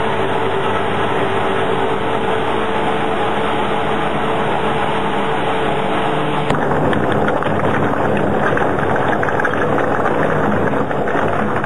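Brentwood BWS400-1250 single-shaft shredder running, its rotor turning with a steady hum. About six and a half seconds in the sound changes abruptly to a rougher, crackling grind as the rotor chews through blocks of wood.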